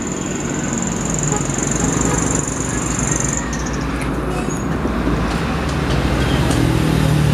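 Isuzu Giga box truck's diesel engine pulling up a hill, a steady low drone mixed with passing traffic that grows louder near the end as the truck comes closer. A high steady whine sits over it and stops about three and a half seconds in.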